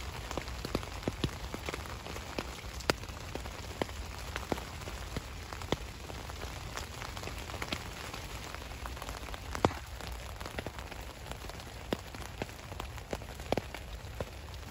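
Rain falling on the fabric of a Naturehike VIK1 tent, heard from inside: a steady patter with many single drops tapping sharply and irregularly on the fly, one tap about two-thirds of the way through louder than the rest.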